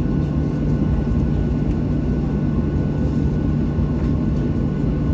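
Steady cabin noise inside a Boeing 737-800 with its CFM56 jet engines running: an even low rumble with a constant hum and a faint steady whine, not rising or falling.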